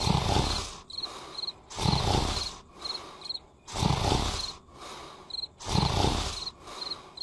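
Cartoon character snoring: a loud, rough snore about every two seconds with softer breathing between. Crickets chirp steadily in short pairs behind it.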